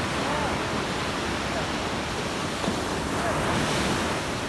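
Sea surf washing onto the shore, swelling louder about three seconds in, with wind buffeting the microphone.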